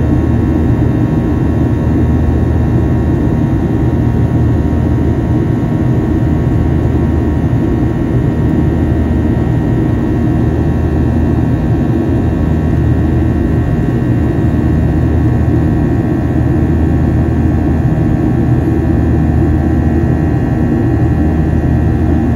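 Steady jet engine and airflow noise in the cabin of a Boeing 737 in flight, the CFM56-7B turbofans running with a constant low hum and a few steady tones over a rush of air.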